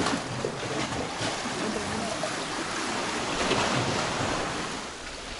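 Sea waves breaking and washing ashore, a steady rushing hiss that swells about halfway through and eases off near the end.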